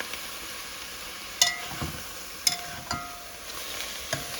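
Spinach sizzling as it fries in oil in a pot, the water cooked off and the dish nearly done, while a spoon stirs it and clinks against the pot about four times.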